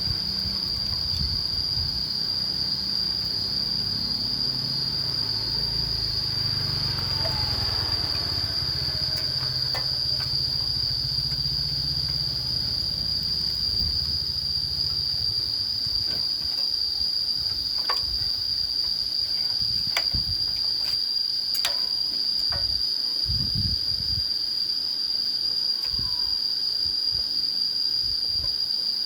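Insects shrilling in one continuous, high, steady tone. A low rumble underneath fades out about halfway through, and a few scattered clicks follow.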